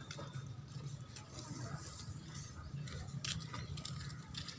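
Faint scraping of a utility knife blade on the bark of a murraya branch as a ring of bark is cut for an air layer, with a few short scrapes in the second half and leaves rustling, over a low steady hum.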